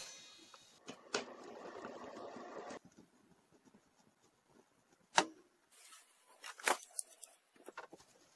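Small metallic clicks and a brief scrape of hand tools on nuts: locking pliers (vice grips) clamped on the nuts of the power inlet's machine screws while the screws are tightened. The scraping stretch comes about a second in and lasts under two seconds, with a few sharp clicks scattered after it.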